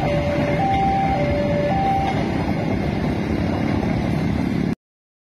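Level-crossing warning alarm alternating between a lower and a higher note, each held about half a second, stopping about two seconds in, over the steady rumble of a passing train. All sound cuts off abruptly near the end.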